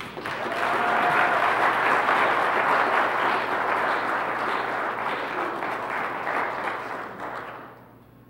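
A congregation applauding, building within the first second and dying away near the end.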